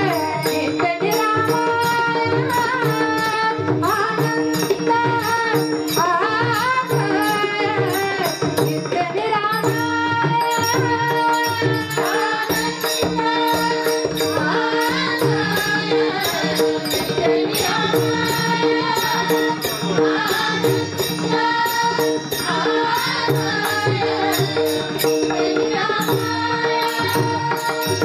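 Marathi devotional bhajan: a woman's voice sings a melody over a steady held drone, while a drum and small cymbals keep a steady beat.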